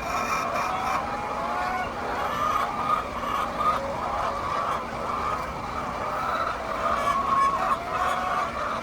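A flock of Egyptian laying hens calling and clucking, many overlapping voices in a continuous chorus.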